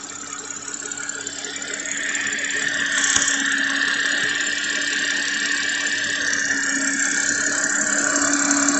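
Audi Q7 engine idling, heard close up in the engine bay, with a steady whine over a low hum and hiss. The sound grows louder over the first few seconds, and there is a single sharp click about three seconds in.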